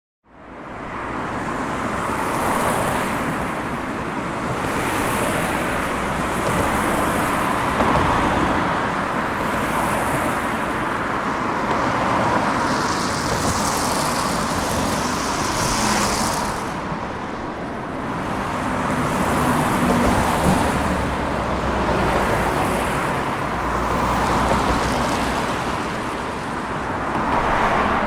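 Road traffic: a steady stream of cars going by, the noise swelling and easing every few seconds as vehicles pass. It fades in at the start.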